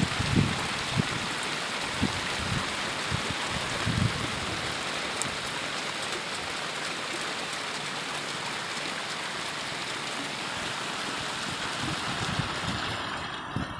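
Steady hiss of rain falling, with a few short low buffets of wind on the microphone.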